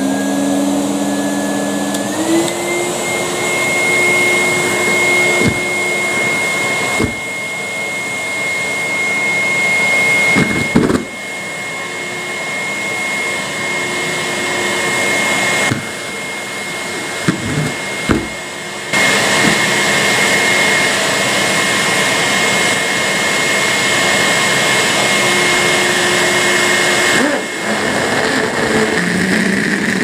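Numatic Henry canister vacuum cleaner running and drawing toilet paper into its hose inlet. Its motor whine steps up in pitch about two seconds in, and the sound dips briefly several times.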